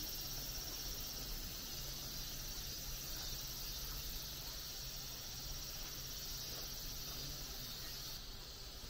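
A steady, high-pitched chorus of insects calling in the surrounding trees, easing a little near the end.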